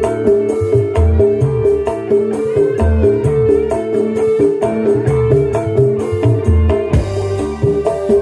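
Live East Javanese dangdut koplo band music played over a stage sound system: kendang hand drums and deep drum beats drive the rhythm under a sustained melody, with a fast, even run of high ticks.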